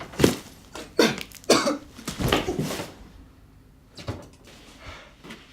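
A wounded man coughing and gasping: four loud coughs in the first two and a half seconds, then two fainter ones near the end.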